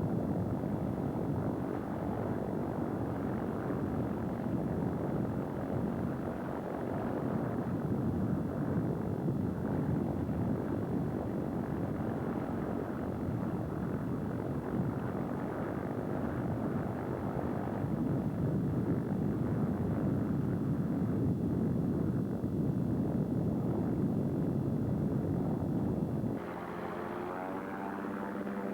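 Light propeller aircraft engine running as a steady, dense drone. About 26 seconds in, the sound cuts abruptly to a quieter, clearer engine note whose pitch wavers up and down.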